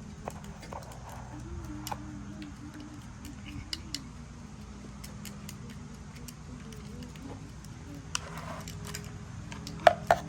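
Scattered light clicks and taps of plastic scoops and tools against plastic sand containers while kinetic sand is scooped, with a few sharper clicks near the end, over a steady low hum.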